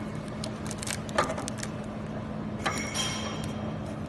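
A few small metallic clicks and clinks as a thin metal piece is handled and set in place, over a steady low machine hum.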